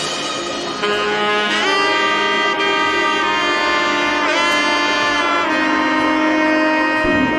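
Background jazz music: a saxophone holding long notes with smooth slides between them over sustained chords. Low drum hits come in near the end.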